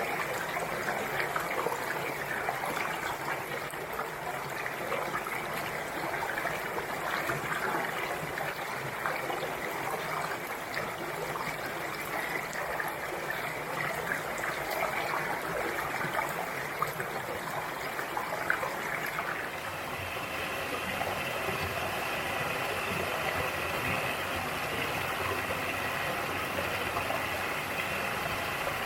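Mountain stream water rushing and splashing over rocks, a steady sound. About two-thirds of the way in it changes to a fuller, deeper rush with more hiss on top.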